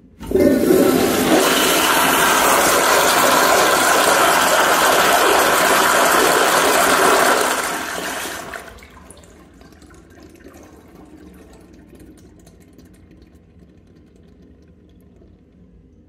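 Toilet flushing: a loud rush of water starts suddenly, holds steady for about seven seconds, then falls away to faint water sounds as the bowl settles.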